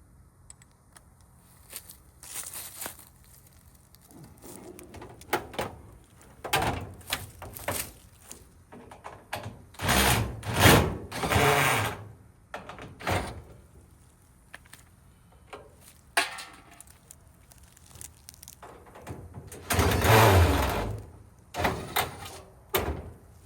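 Sheet-metal parts of a household appliance being handled as it is stripped for scrap: irregular knocks, scrapes and thunks, with two louder bouts of clattering about ten and twenty seconds in.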